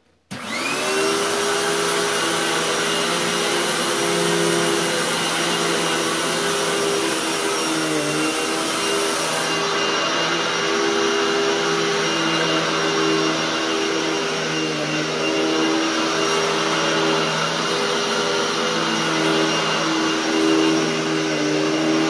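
Hoover Tempo Widepath upright vacuum cleaner switched on, its motor spinning up with a rising whine over about a second, then running steadily as it is pushed over carpet, the pitch dipping briefly now and then.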